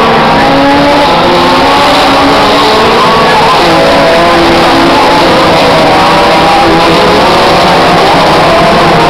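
Several National Hot Rod race cars' engines revving hard together, their pitches rising and falling as they accelerate and back off. Very loud throughout.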